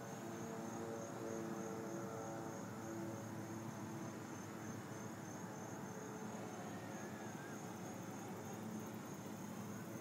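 Crickets chirping in evenly repeating pulses, high-pitched and steady throughout. A faint low hum is heard in the first few seconds and fades out.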